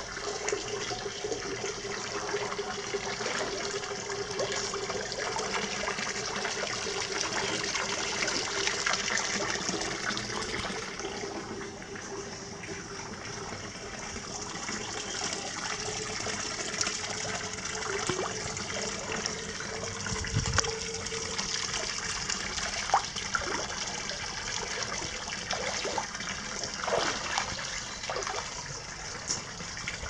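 Hot-spring water pouring from a wooden spout into a rock-lined open-air bath: a steady splashing trickle, with a few brief knocks.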